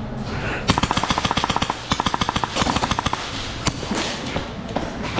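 Airsoft gun firing on full auto: three quick bursts of rapid shots, about a dozen a second, then one lone shot.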